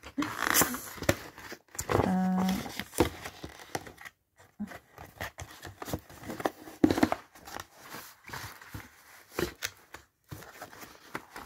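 Cardboard packaging and plastic wrap being handled: irregular rustling, scraping and small knocks, with a brief steady tone about two seconds in.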